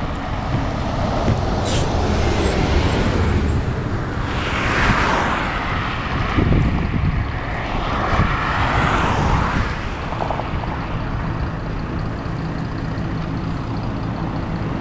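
Cars driving past close by, their tyre and engine noise swelling and fading twice, about four and eight seconds in, over a steady low rumble.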